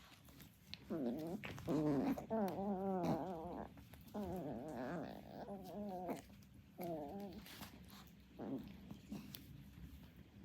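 Chihuahuas play-fighting: a small dog growling in a string of short, wavering growls, fading out after about seven seconds with one fainter growl later.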